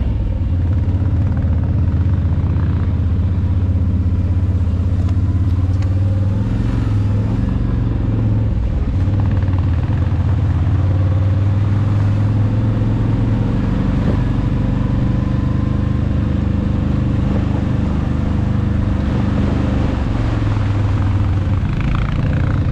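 Can-Am Outlander ATV engine running steadily as it is ridden along at an even pace, heard close up from the handlebars.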